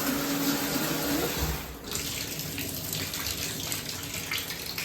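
Shower running, water spraying into a bathtub, with a faint steady pipe whine under it at first. About two seconds in the spray cuts back, leaving quieter running and splashing water in the tub.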